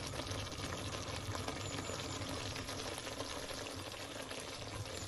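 Thick tomato sauce bubbling and popping in a stainless steel pot, a steady crackle of many small pops; it is still bubbling just after the flame under it has been switched off.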